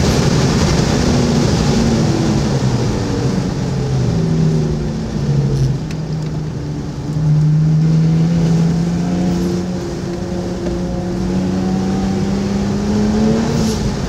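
Car engine heard from inside the cabin while lapping a circuit: the engine note falls away about five seconds in as the car slows, then rises steadily from about seven seconds as it accelerates, with a short drop near the end.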